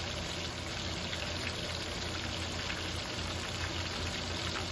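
Breaded chicken wings deep-frying in a cast-iron skillet of hot oil: a steady sizzling of bubbling oil.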